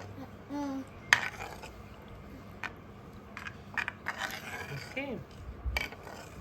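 Kitchen utensils and dishes knocking and clinking, about six separate sharp strikes with some scraping between them.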